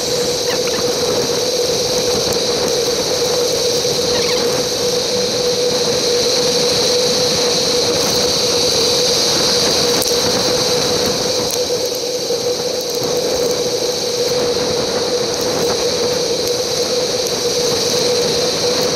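Steady rushing wind and tyre noise from riding a bicycle, picked up by a GoPro camera, with a steady hum underneath.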